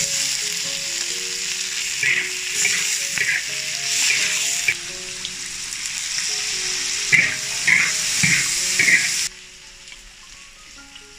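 Sliced bamboo shoots and chilies stir-frying in a large hot wok: a loud steady sizzle with spatula scrapes against the wok in quick runs. The sizzle cuts off suddenly about nine seconds in, leaving soft background music.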